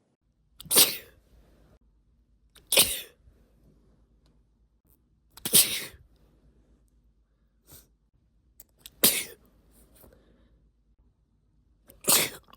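A woman's stifled sneezes: five sharp, short bursts two to three seconds apart, with a small extra puff between the third and fourth.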